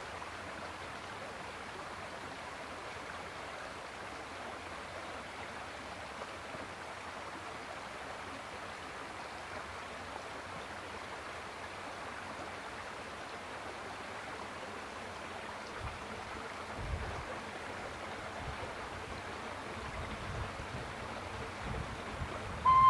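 Steady outdoor rushing hiss, with low rumbles building over the last several seconds as a narrow-gauge steam train approaches. Right at the end a Hunslet 0-4-0T steam tank engine's whistle starts, one loud high note.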